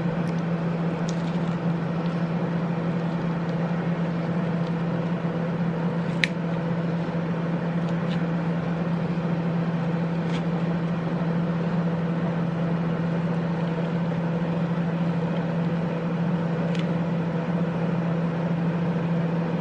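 Kitchen appliance running: a steady motor hum with an even whirring noise over it and a few faint clicks. It cuts off suddenly at the end.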